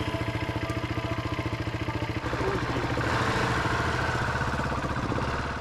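Motorcycle engine idling with an even, rapid pulsing beat, growing slightly louder about two seconds in.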